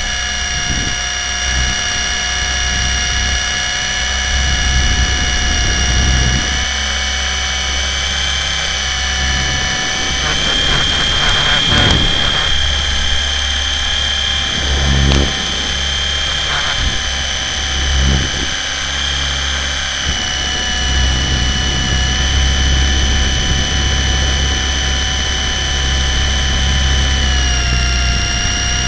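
Blade 120 SR micro RC helicopter's electric motor and rotor running in flight, heard from a camera mounted on the helicopter itself: a steady whine over a low rumble. The whine rises a little in pitch around the middle and drops slightly near the end.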